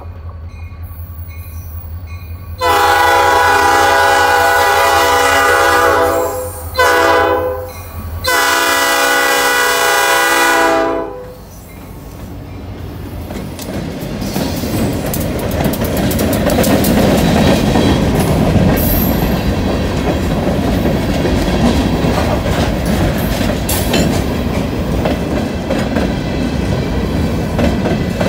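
Approaching diesel freight locomotives rumble, then their air horn sounds a long blast, a short one and another long one. The locomotives pass close by and a string of gondola cars follows, wheels rolling and clacking on the rails.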